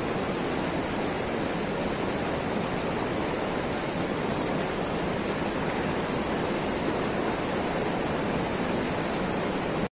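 Steady, even rushing noise with no distinct events, cutting off abruptly at the end.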